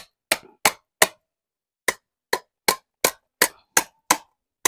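Hammer tapping a small sheet-metal plate curled around a pipe, bending it into a round sleeve: a quick run of sharp, slightly ringing metal strikes, about three a second, with a short break about a second in.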